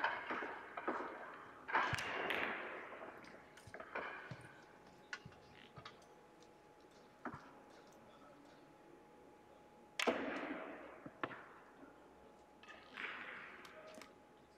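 Russian pyramid billiard balls clacking in a reverberant hall: the rack being settled at the start, then scattered single clicks and two louder strikes about two and ten seconds in, each trailing off over about a second.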